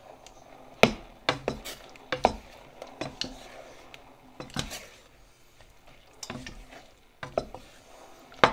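Flat wooden spoon stirring chunks of strawberry in a stainless steel saucepan, knocking and scraping against the pan's side and bottom in about eight irregular knocks, the loudest near the end.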